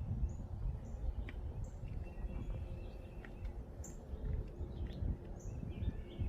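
Wind buffeting the microphone in a gusting low rumble, with birds calling over it in short, high chirps repeated every second or so.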